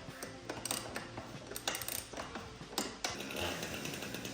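Scattered light metallic clicks and clinks of strut channel and its hardware being handled and fitted.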